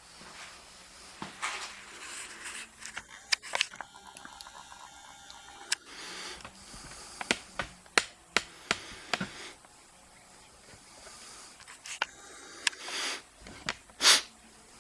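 Scattered clicks, knocks and rustling from small metal parts and tools being handled and set down, with the sharpest knock near the end.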